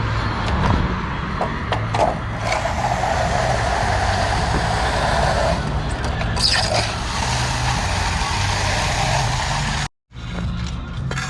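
Concrete truck's diesel engine running steadily, with a few short knocks over it. The sound cuts out abruptly about ten seconds in, then picks up again.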